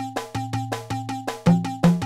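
Electronic Moroccan chaabi beat programmed in FL Studio Mobile at 161 BPM: a fast, even run of sampled percussion hits, about five a second, with short pitched tones and a bass line. Heavier low hits land about one and a half seconds in and again near the end.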